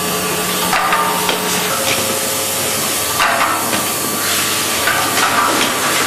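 Omas 12-head rotary syringe filling machine running: a steady hiss with short clatters of its stations cycling about every second or so.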